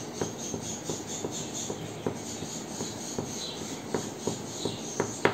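Oil pastel rubbing across paper in short repeated strokes, a light tick at many strokes, the strongest near the end.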